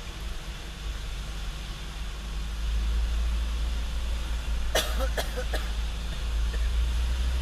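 Truck engine running at low speed, heard from inside the cab as a steady low drone that grows somewhat louder about two and a half seconds in. About five seconds in come three short, sharp sounds in quick succession, like coughs.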